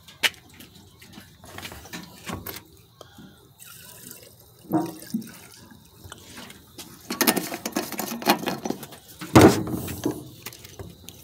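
Two-stroke 50:1 premixed fuel poured from a can into the fuel tank of a Stihl MS 192 T chainsaw. The liquid splashes steadily into the tank for about three seconds in the second half, after a few light knocks and clicks.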